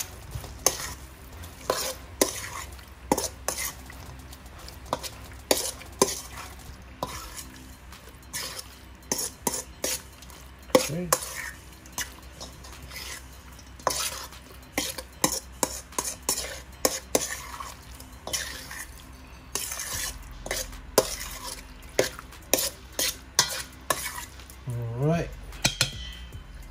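Raw chicken pieces being mixed with spices and wet green seasoning in a stainless steel bowl: squelching, with irregular knocks and scrapes against the metal. Near the end a spoon does the stirring.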